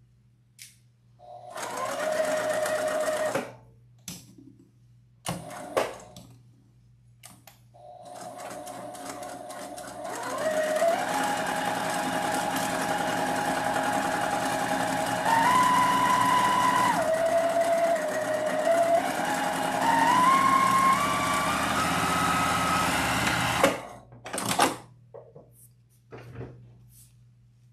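Electric sewing machine stitching through felt: a short run, then a long run of about fifteen seconds whose motor whine steps up and down in pitch as the speed changes. It stops near the end, followed by a few short clicks.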